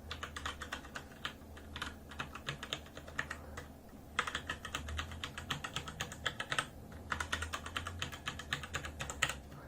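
Fast typing on a Razer BlackWidow mechanical keyboard with Razer Orange tactile switches: a rapid run of key strokes, broken by brief pauses about four seconds in and again near seven seconds.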